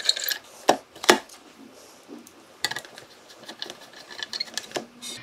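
Screwdriver turning small machine screws into a metal ECU case: scattered sharp metallic clicks and ticks, the loudest about a second in.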